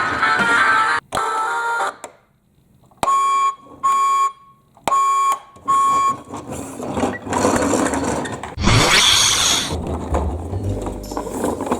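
Four short electronic beeps of one steady pitch, about a second apart. Then, about nine seconds in, a brief loud hiss followed by a low hum.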